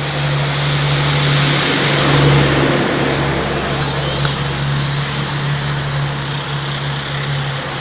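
An engine running steadily with a low, even hum, swelling a little about two seconds in.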